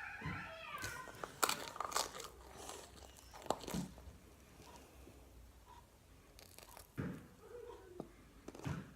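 Crunchy tortilla chips coated in melted marshmallow and chocolate being bitten and chewed close up: scattered crisp crunches with quieter chewing between them.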